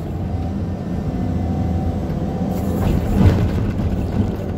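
Caterpillar 320D2 hydraulic excavator heard from inside its cab, its diesel engine running at working speed with a steady drone and a faint steady whine while the bucket levels the fill. A louder rush of noise swells briefly about three seconds in.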